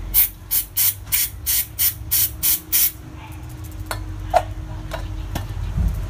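Aerosol cleaner sprayed in about nine short hissing bursts, roughly three a second, flushing sludge out of a car's PCV valve. A few light clicks follow in the second half.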